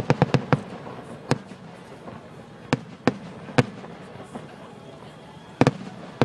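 Fireworks going off: sharp bangs at irregular intervals, a quick cluster of several at the start, then single bangs spaced about half a second to a second apart, and a close pair near the end.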